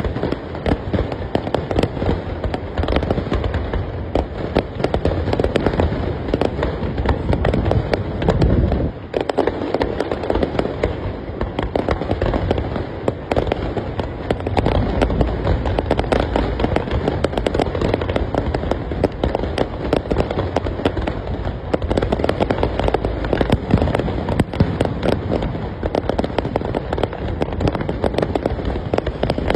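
A fireworks display: a dense, continuous barrage of bangs and crackles, with a brief lull about nine seconds in.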